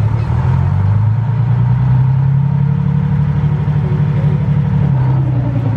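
A wooden passenger ferry's engine running loud and steady while the boat holds at a dock. Its note steps up slightly about a second in and falls back near the end.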